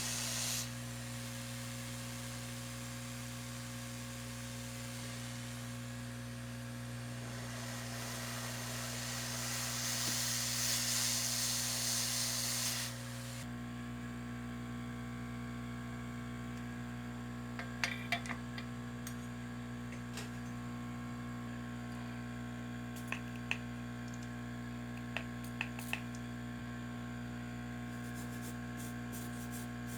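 A steady electrical hum with a hiss like blowing air over it. The hiss grows louder, then cuts off suddenly a little under halfway through. After that the hum carries on alone, broken by a few small clicks and a quick run of ticks near the end.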